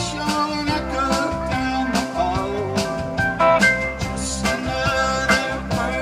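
Live rock band playing a song with drum kit, electric bass and electric guitar over a steady beat.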